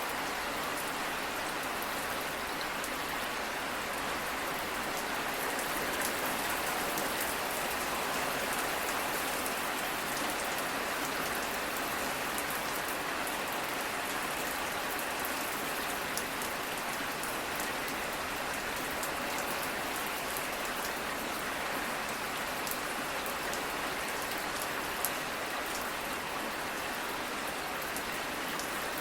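Steady rain falling: an even hiss with many small sharp drop ticks scattered through it, and a couple of slightly louder single drops partway through.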